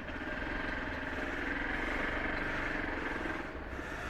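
Motorcycle engine running while riding, with steady road and wind noise.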